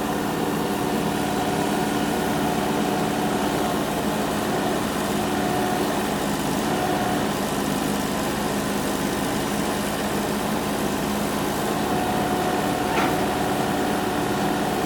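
Excavator's diesel engine running steadily at an even speed, with one short click near the end.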